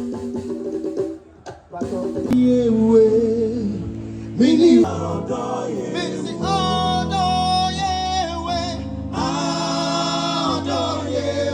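Live band playing with singing over it during a sound check: a few short choppy notes at first, then sung phrases held over steady low accompaniment.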